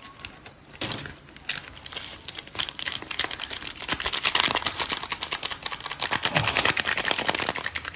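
Rapid, steady clicking and scraping, many strokes a second, starting about a second in, as prawns are mixed through their yogurt and biryani-masala marinade in a bowl.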